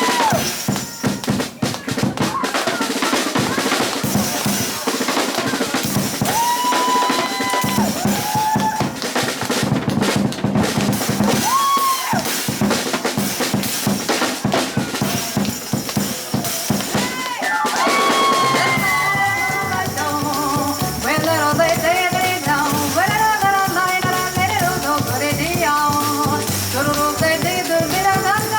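Live jazz drum-kit solo with snare rolls, rim shots and bass drum. About two-thirds of the way through, the piano and double bass come back in, with many pitched notes over the drums.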